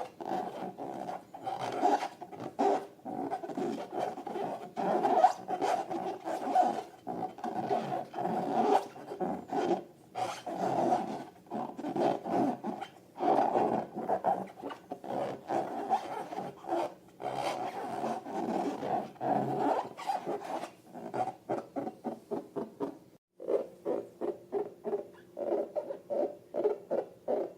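Rubber balloons squeaking and rasping in long, uneven runs of pitched squeaks. From about two-thirds of the way in, the squeaks come in quick, even pulses, about four a second.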